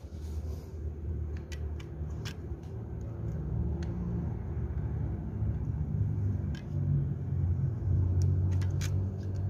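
Manual caulking gun being squeezed to pump sealant into a crack, its trigger and plunger rod giving scattered sharp clicks, over a steady low rumble that is the loudest sound.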